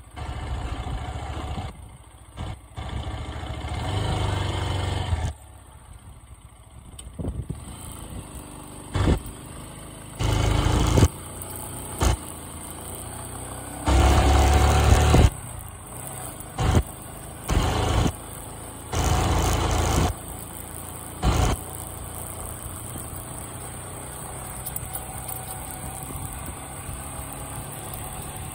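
Motorcycle being ridden along a road, its engine running steadily. Wind buffets the microphone in loud, abrupt gusts at irregular intervals through the first two-thirds, then the sound settles to a steadier run.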